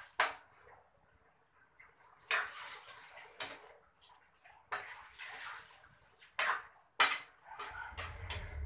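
Metal spatula scraping and clanking against a wok as food is stirred over a gas burner, several sharp strokes a second or so apart, with a faint sizzle between them.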